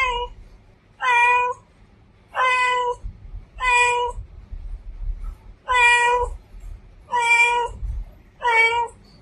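Female cat meowing over and over: about seven short meows, each roughly half a second long, coming about once a second with brief pauses between.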